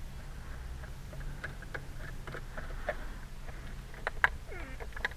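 Scattered light clicks and ticks of a screwdriver working a screw loose in a plastic steering-column cover, with a brief falling squeak near the end, over a faint steady low hum.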